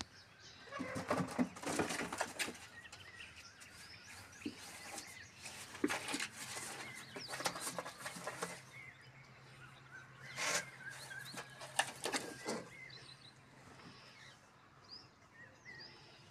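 Cardboard boxes rustling and scraping in several bursts as a cat moves about in and against them, with faint bird chirps near the end.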